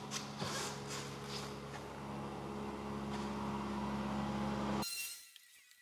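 Microfiber cloth wiping across painted car-door metal, spreading a ceramic spray coating, with a few soft swishes over a steady low hum. The sound cuts off abruptly near the end.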